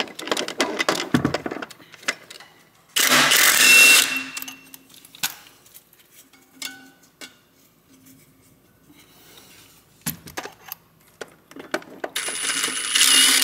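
Cordless impact wrench hammering on a Torx 50 torque-converter-to-flywheel bolt in two bursts: one about three seconds in lasting about a second, and another near the end. Light metallic clinks of tools and bolts are heard between them.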